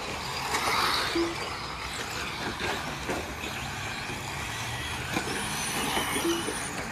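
Electric RC rally cars running on a dirt track, their motor whir and tyre noise rising as they pass about a second in. Two short beeps sound, one about a second in and one near the end.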